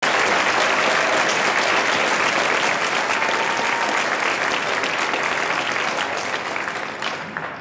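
Audience applauding: a dense patter of many hands clapping, dying down near the end.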